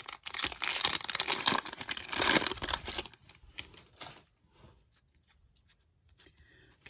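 A baseball card pack's wrapper being torn open and crinkled for about three seconds, followed by a few faint rustles as the cards are handled.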